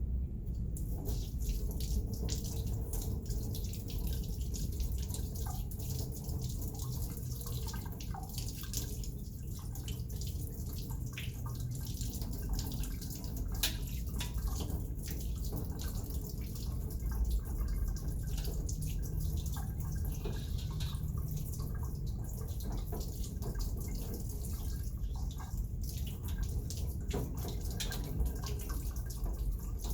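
Running water washing fine aggregate off a number 200 sieve back into the sample pan, with steady water noise and scattered drips and splashes.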